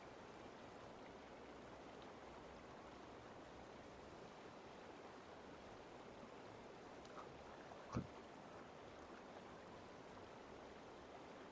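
Near silence: a steady faint hiss of background noise, with one brief sharp click about eight seconds in.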